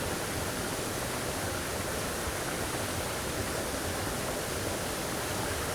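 Steady rush of a mountain creek tumbling over small falls and rocks.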